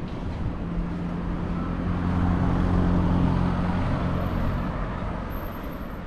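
A motor vehicle driving past on the road, its low engine hum swelling to a peak about two to three seconds in and then fading away.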